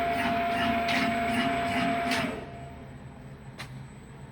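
CNC roll notching machine running automatically: a steady motor whine with a repeating cutting stroke about twice a second. The whine and strokes stop about two seconds in, leaving a quieter hum with a single click.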